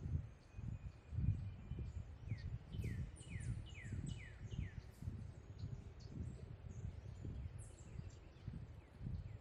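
A songbird gives a quick run of about six down-slurred whistled notes starting about two seconds in, among other high chirps from birds, over the low thudding of footsteps on a trail.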